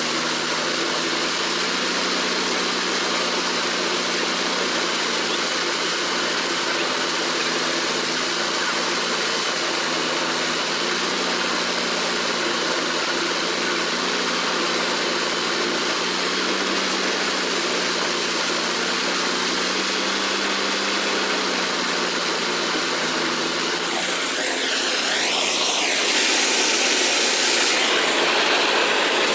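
Tractor engine driving a maize thresher, a steady mechanical drone. About 24 seconds in, it gives way to a louder hiss with a sweep that rises and falls in pitch.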